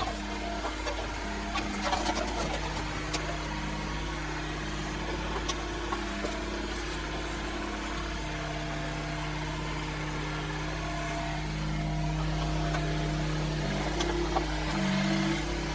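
Yanmar B22 mini excavator's diesel engine running steadily, its note stepping up and down as the machine works, with scattered clicks and knocks. The audio is sped up to double speed, raising every pitch.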